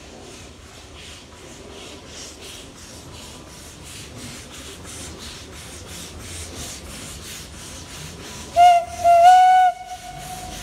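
G42, a 1926 Beyer-Garratt narrow-gauge steam locomotive, working steadily with a fast, regular chuff from its exhaust. Near the end its steam whistle sounds a short blast and then a longer one.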